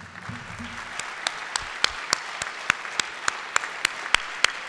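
Audience applauding, the clapping building up over the first second. One pair of hands close by claps in a steady beat of about three claps a second, louder than the rest.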